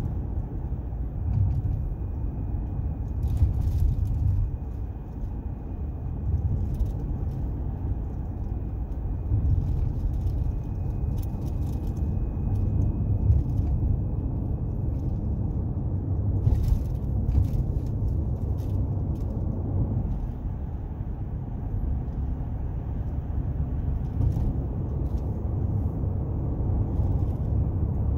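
Road noise heard inside a moving car's cabin: a steady low rumble from the tyres and engine, with occasional faint clicks and rattles.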